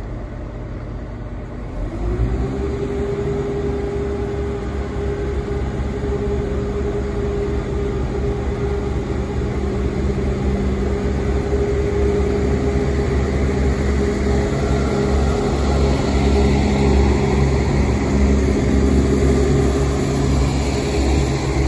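Two coupled Class 170 Turbostar diesel multiple units idling, then about two seconds in the underfloor diesel engines rev up sharply to a steady drone as the train pulls away. The drone grows gradually louder as the train accelerates past.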